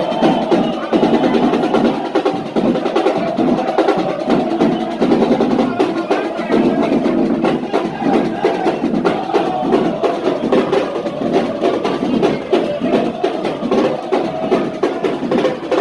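Football supporters' drum band playing a fast, steady beat on drums and snares, with a crowd of voices chanting along.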